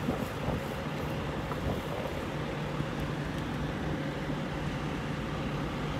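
Steady low hum of an idling truck engine with wind noise on the microphone, and a few faint clicks of a spatula against the skillet.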